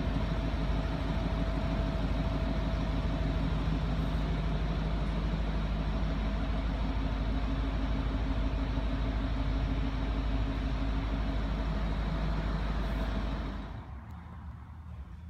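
Range Rover Sport 3.6 TDV8 twin-turbo diesel V8 idling steadily, the sound dropping away about a second and a half before the end.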